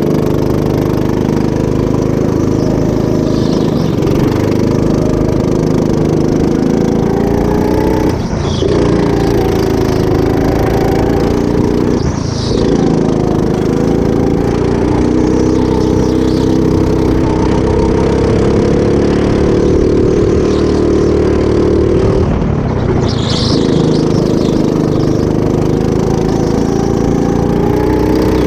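Racing go-kart's small engine running hard at high revs, its pitch dipping briefly several times as the throttle is lifted for corners and climbing straight back up under acceleration.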